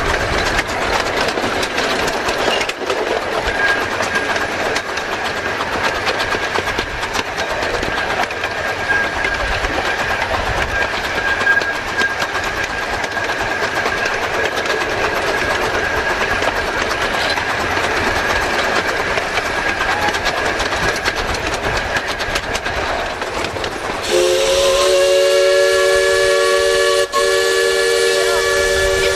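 A 15-inch-gauge live steam park train rolling along, a steady rumbling clatter with a thin, steady high squeal over it. Near the end the steam locomotive's whistle starts, a loud held chord of several notes.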